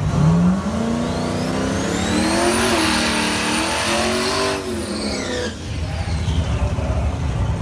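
Race car's V8 accelerating hard, its engine note climbing and wavering, with a high whine rising alongside. Both cut off abruptly about four and a half seconds in, then falling tones follow.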